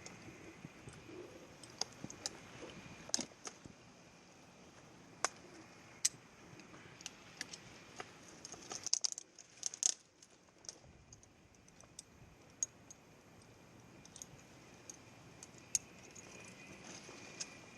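Metal climbing hardware clinking: scattered sharp metallic clicks and jangles over a faint steady hiss, with a quick run of clicks about halfway through.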